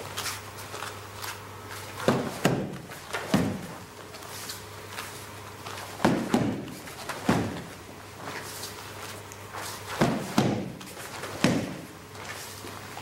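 Punches and a knee strike landing on a hand-held kick shield: three rounds about four seconds apart, each two quick thuds and a third a moment later.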